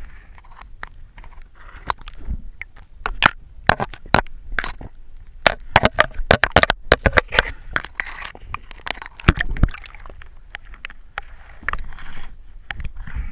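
Water noise picked up by a diver's camera, in and out of the water: a rapid, irregular series of sharp clicks and knocks, densest through the middle, with water sloshing and splashing.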